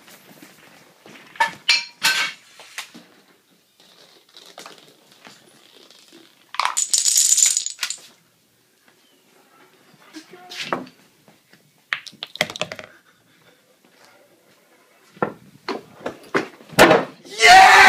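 Scattered clicks, knocks and rattles from a homemade Rube Goldberg chain-reaction machine as its balls, marble, dominoes and weights strike and fall, with a longer clatter about seven seconds in.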